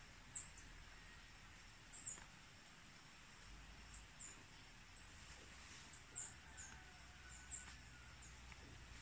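Small birds chirping faintly: about a dozen short, very high chirps, each dropping in pitch, scattered irregularly over quiet rural background noise.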